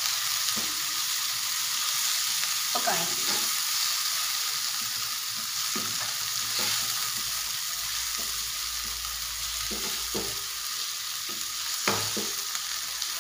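Chopped onion, garlic and tomato sizzling in hot oil in a kadai, stirred with a spatula that scrapes across the pan in irregular strokes every second or two, with one sharper clack near the end.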